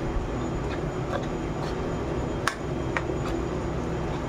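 Metal spoon stirring thick chickpea batter in a bowl, with a few light clicks of the spoon against the bowl, over a steady low hum.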